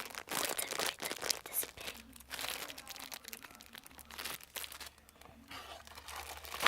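Close-up crinkling and crumpling of something crinkly being handled, a dense run of irregular crackles that eases off briefly past the middle and ends on a louder crackle.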